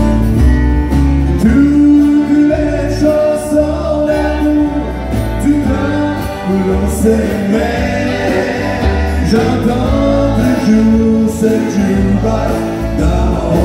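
Live acoustic country music: a man singing lead over several strummed acoustic guitars and a fiddle.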